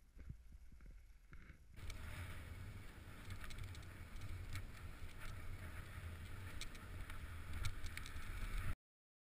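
Wind rushing over a helmet-camera microphone and skis scraping through chopped snow on a downhill run, with scattered clicks. It jumps louder about two seconds in and cuts off suddenly near the end.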